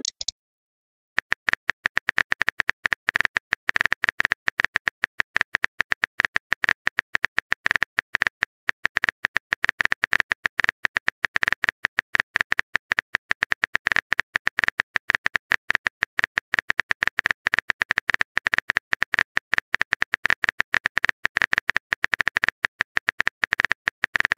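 Simulated phone keyboard clicks from a texting-story app, a rapid steady run of taps, several a second, as a long message is typed out. They start about a second in.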